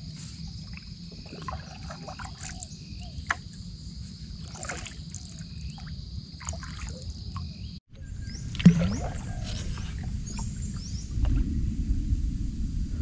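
Steady high-pitched insect drone over small water sloshes and knocks. The drone breaks off abruptly a little under eight seconds in. About a second later comes a single sharp knock, the loudest sound here, followed by a louder low rumble of movement in water.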